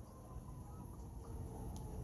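Faint, distant fire engine siren holding a near-steady tone over quiet outdoor background.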